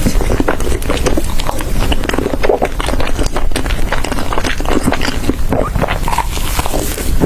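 Close-miked eating: rapid, irregular crunching and mouth clicks of someone chewing food, over a low rumble.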